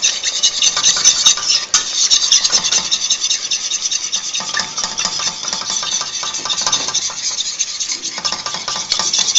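A spoon stirring and scraping round a stainless steel saucepan in quick, irregular strokes, while a butter-and-flour roux sizzles as milk is worked into it for a white sauce, which is cooking fast and thickening.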